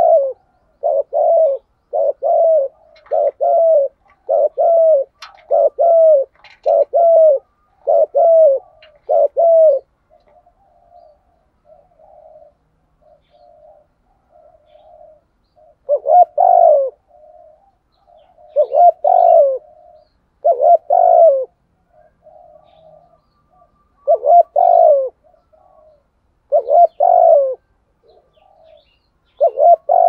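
Spotted dove cooing. A quick run of about nine short coos, roughly one a second, then after a lull with faint softer calls, louder coos coming every two to three seconds.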